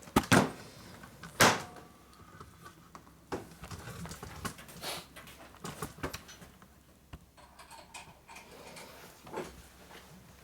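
Metal tools and parts being handled on a workbench: a few sharp clanks and knocks in the first second and a half, then lighter scattered clicks and clunks.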